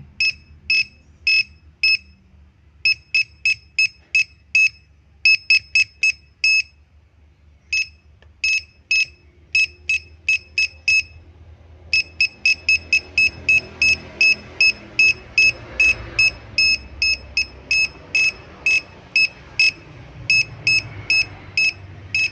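Portable keyboard tester giving a short high beep each time a laptop keyboard key is pressed; each beep means that key works. The beeps come in irregular runs with short pauses, then quicker and steadier from about halfway.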